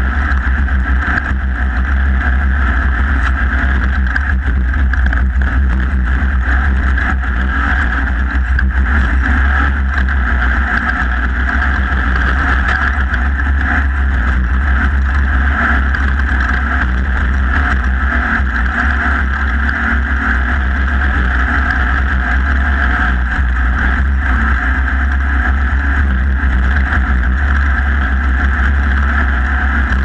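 Off-road race vehicle's engine running steadily at speed on a dirt course, heard from onboard as one continuous loud drone.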